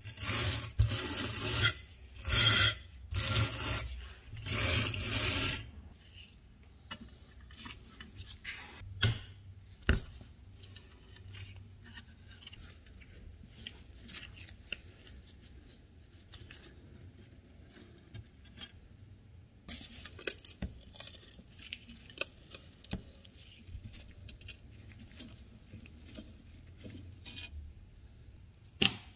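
Wire brush scrubbing rusty, oil-wet cast iron in four loud strokes, then quieter scraping and clicks as a screwdriver turns a rusted screw loose.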